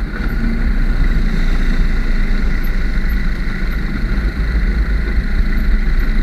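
ATV engine running steadily while it tows a wagon along.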